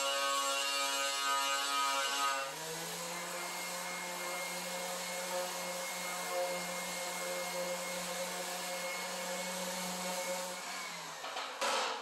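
A cordless grinder with a blue abrasive disc runs with a steady high whine, stripping paint off a steel panel. About two seconds in it gives way to a lower-pitched corded sander running steadily on the bare metal, which winds down near the end and is followed by a brief loud noise.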